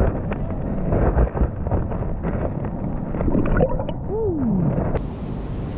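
Muffled sloshing and gurgling of shallow river water heard from a camera held under the surface, with small knocks as a hand moves in the water. A faint falling tone sounds about four seconds in, and about five seconds in the sound turns clearer and brighter.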